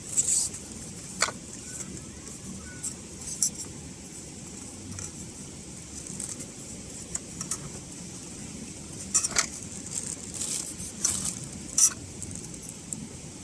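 Scattered light clicks and clatters of objects being handled, loudest about nine and twelve seconds in, over a steady low background noise.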